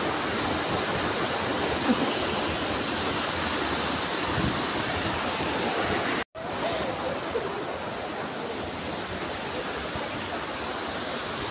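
Waterfall pouring into a rock pool: a steady rush of falling water that breaks off for an instant about six seconds in.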